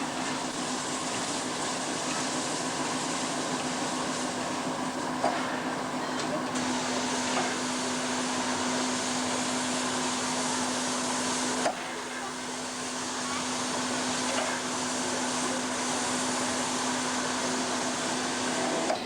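Steady hiss of escaping steam under a low, even hum, with a few faint clicks; the hiss drops abruptly about twelve seconds in and then continues more softly.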